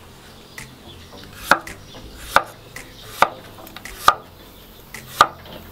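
Kitchen knife slicing zucchini on a wooden cutting board, each cut ending in a sharp knock of the blade on the board: about five strong knocks a little under a second apart, with a few fainter taps between.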